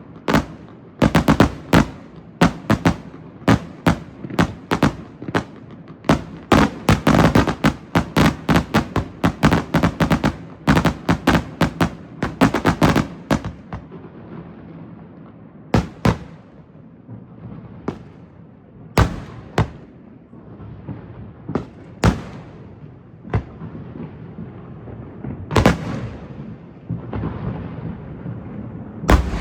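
Fireworks show: a rapid barrage of shell bursts, several bangs a second, for the first half, thinning after about fourteen seconds to single booms every second or two with rumbling echo between.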